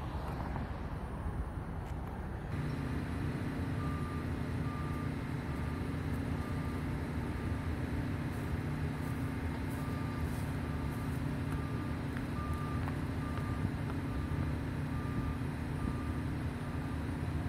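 A heavy construction machine's diesel engine running steadily, with its reversing alarm beeping evenly at one pitch, a little more than once a second. The engine sound comes in abruptly a couple of seconds in.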